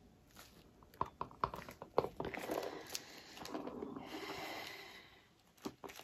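Paper towel crinkling and rustling in a gloved hand, with a quick run of sharp clicks and knocks about a second in, a longer rustle that swells and fades in the middle, and a couple more clicks near the end.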